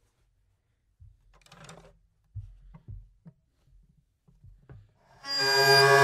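Hurdy-gurdy: a few faint scattered knocks and a brief rustle, then about five seconds in a loud, steady drone of several held tones swells in as the wheel bows the strings.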